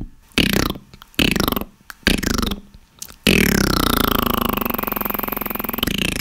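Beatboxer's vocal sound effects: three short bursts, then a long throaty sound about a third of the way in that slides down in pitch, holds for about two and a half seconds and cuts off.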